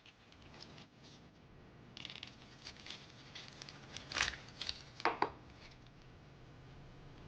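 Kitchen knife cutting into a kohlrabi, with scattered short slicing and scraping sounds and two louder cuts about four and five seconds in.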